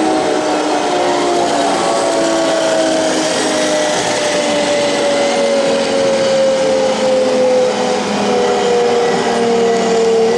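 1/16-scale RC tank running, its electric drive motors and gearbox whining over a steady rushing noise. The whine slowly drops in pitch as the tank eases off.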